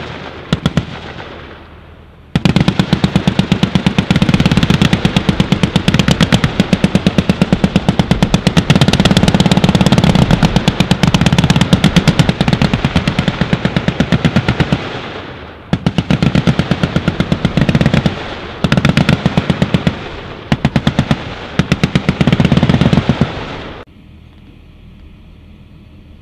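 Vehicle-mounted M2 .50-calibre heavy machine gun firing rapid automatic fire. A few shots come at the start, then a long unbroken stream of about twelve seconds, then four shorter bursts. The firing stops about two seconds before the end.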